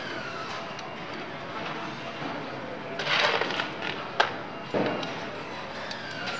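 Plastic instrument-cluster housing being handled and fitted into a dashboard, rustling and clacking against it, with one sharp click about four seconds in as its wiring connector is plugged in. Steady assembly-hall background noise runs underneath.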